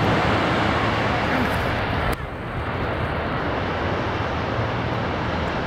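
Steady wind rumble on the microphone over breaking surf. The level drops abruptly about two seconds in.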